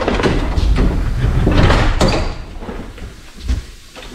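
School bus's manually operated entrance door being swung open with the driver's door-control lever: knocks and rattling from the door and its linkage, loudest in the first two seconds, then quieter.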